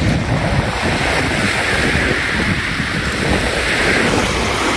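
Wind buffeting the microphone over the wash of small waves lapping on a lagoon beach, a steady rushing noise with a gusty low rumble.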